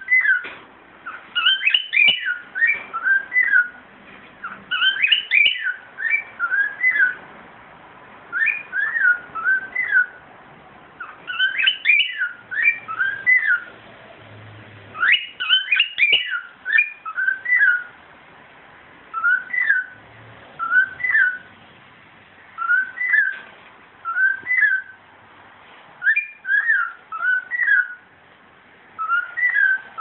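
Male cockatiel whistling its breeding-season courtship song: short phrases of quick up-and-down whistled notes, repeated every second or two with brief pauses between them.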